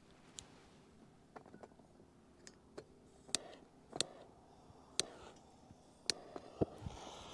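Metal camping cookware clinking: a few faint ticks, then about five sharp clinks over the second half.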